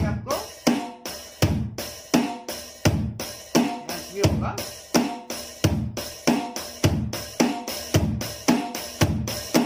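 Drum-kit patch on a Roland SPD-20 Octapad electronic percussion pad struck with drumsticks, playing a steady 4/4 beat with strong hits about every three-quarters of a second and lighter strokes between them.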